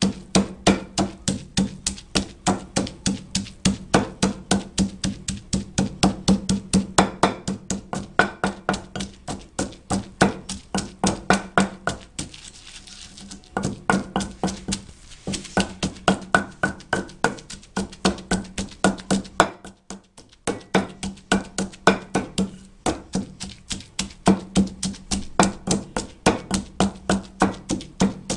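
Wooden pestle pounding green chillies, mint and coriander in a heavy stone mortar, grinding chutney by hand: a steady beat of about three knocks a second. The pounding pauses briefly about twelve seconds in and again near twenty seconds.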